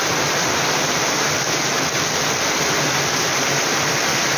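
Heavy rain pouring steadily onto a flooded paved yard and trees: a dense, even hiss of falling water.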